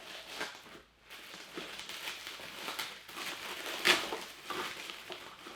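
Packaging being handled as a boxed Funko Pop figure is lifted out of a cardboard mystery box: crinkling and rustling with small clicks, and one sharp knock about four seconds in.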